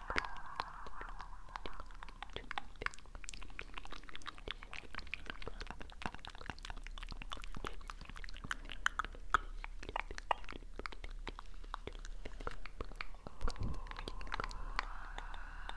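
Close-miked ASMR trigger sounds: a dense, irregular run of small sharp clicks and crackles.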